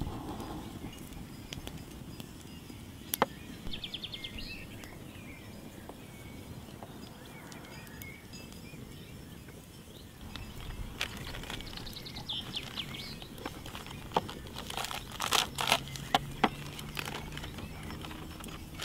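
Outdoor ambience: a steady low background hiss with birds chirping a few times. Near the end, a run of crinkles and clicks as a plastic bag is handled.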